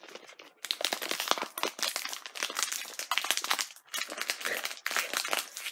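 Thin plastic inner snack bag crinkling and crackling in the hands as it is pulled open, a dense run of small crackles with a brief pause partway through.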